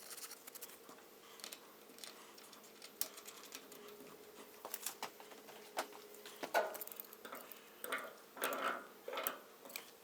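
Faint scattered clicks and light taps of small plastic parts being handled, as a new O-ring vacuum plug is threaded into the top of a Fill-Rite hand-crank diesel transfer pump. The clicks come more often in the second half, over a faint steady hum.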